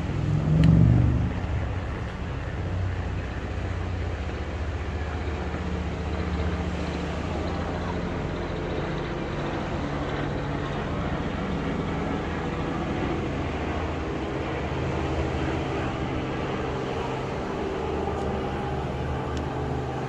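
Steady low engine hum with a faint, even background noise, and a brief louder low rumble about a second in.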